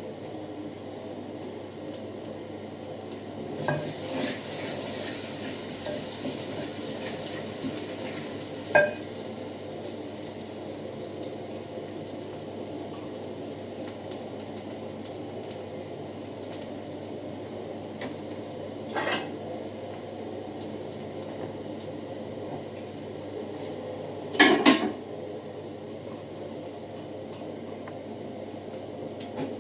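Metal cooking pot and utensils clanking a handful of times over a steady low hiss; one clank rings briefly, and the loudest come as a quick cluster near the end.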